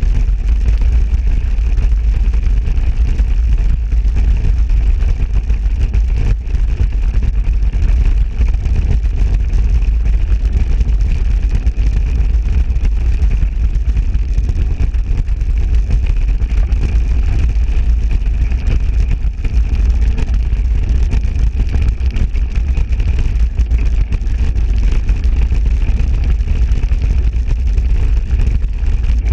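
Steady wind rush and rumble from a mountain bike riding fast off-road, heaviest in a deep low rumble with a faint thin hiss above it.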